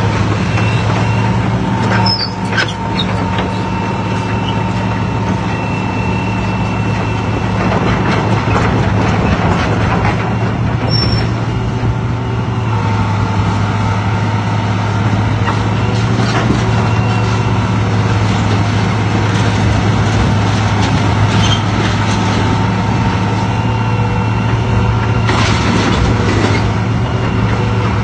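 Tracked hydraulic excavator's diesel engine running steadily with a low, even drone while it demolishes a building, with crunching and scraping of rubble several times.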